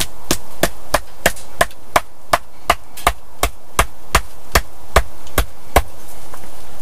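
Steady hammering on a wooden fence pole, about three blows a second for some sixteen strikes, stopping about six seconds in.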